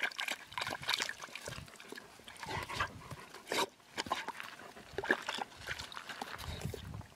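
A dog shifting about in a plastic tub of water, making irregular splashes and sloshes, with short dog vocal noises mixed in.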